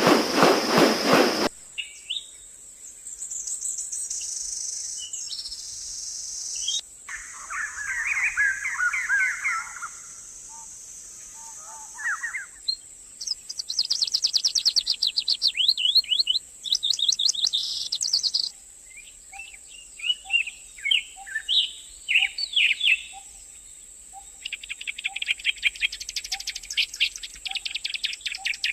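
Birds chirping and trilling in a run of different calls: fast chirp series, buzzy trills and short rising and falling notes, switching suddenly every few seconds. A steady high-pitched hiss runs underneath. In the second half a soft low note repeats about twice a second.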